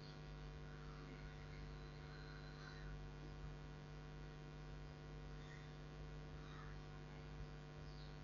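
Faint, steady electrical hum with several steady tones layered together, the background noise of the recording. A few very faint chirps are scattered through it.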